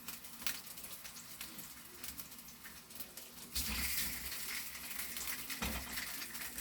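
Sliced boiled dumplings frying in a pan of hot oil: a steady sizzle with scattered crackles and pops. About three and a half seconds in, the sizzle suddenly gets louder and stays loud.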